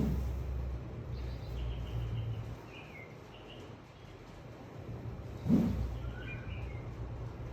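Small birds chirping in short falling calls over a steady low rumble, with two brief whooshes about five and a half seconds apart.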